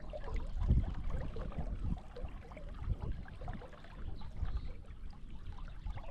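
Wind buffeting the microphone in uneven low gusts over the sound of river water.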